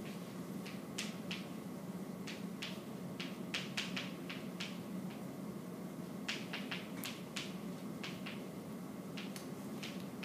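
Chalk tapping and scraping on a chalkboard as a diagram is drawn, in short, sharp, irregular strokes, often several a second, over a steady low room hum.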